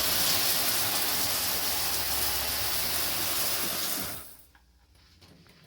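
RV shower running pink antifreeze through its lines during winterization, a steady rushing spray that is shut off about four seconds in.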